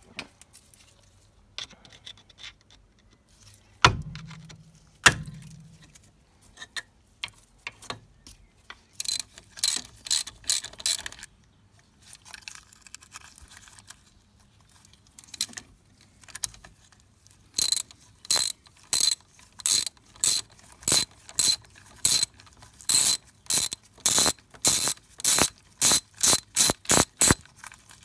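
Hand socket ratchet clicking as a bolt is wound out. It comes in short, even strokes at about two a second through the second half, after a brief run of ratcheting earlier and a couple of sharp metal knocks near the start.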